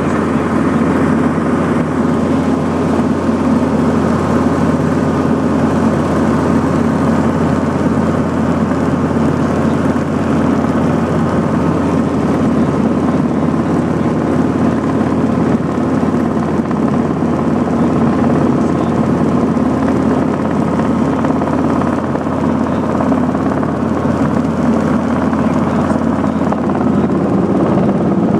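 Helicopter running steadily in flight: a loud, unbroken drone of engine and rotor with a constant low hum and steady tones above it.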